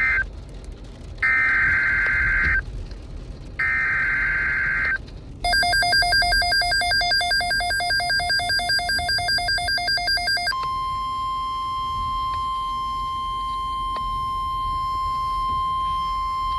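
NOAA Weather Radio emergency alert opening: the screeching SAME header data bursts, the end of one and then two more about a second apart, then a rapidly pulsing electronic alert tone for about five seconds, then the steady 1050 Hz warning alarm tone. It heralds a broadcast alert, here the extension of a severe thunderstorm watch.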